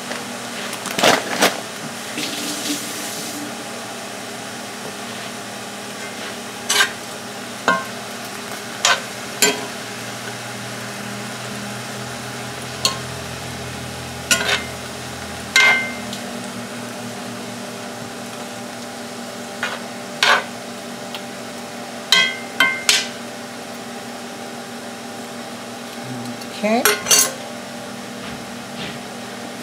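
Metal utensils knocking and scraping against a cast iron skillet at irregular intervals while frozen chopped spinach and butter are stirred, over a steady sizzle from the pan.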